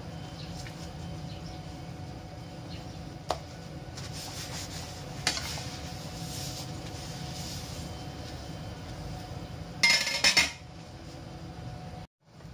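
Kitchen handling sounds as raw pork chops are patted dry with paper towels on a plastic cutting board: soft rustling and a couple of single sharp knocks, with a louder short clatter about ten seconds in, over a steady low hum.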